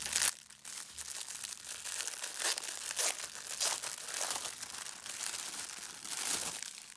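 Small plastic bags of diamond-painting drills crinkling and rustling as they are handled, a run of irregular crackles with the loudest just at the start.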